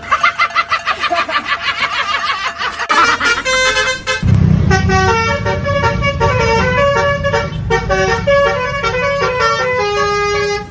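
Telolet musical bus horn: fast repeated horn trills at first, then a tune of separate stepped notes, with a steady low rumble joining about four seconds in.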